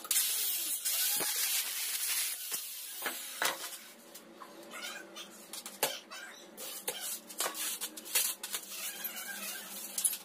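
Aluminium sliding-door channel being cut: a hissing, scraping cut for the first three seconds or so that fades away, then scattered clicks and knocks as the cut channel is handled.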